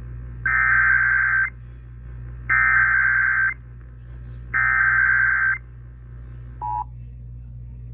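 Emergency Alert System SAME header broadcast over AM radio: three one-second bursts of digital data tones, a second apart, encoding a severe thunderstorm warning. A short beep follows about a second after the last burst, over a steady low hum.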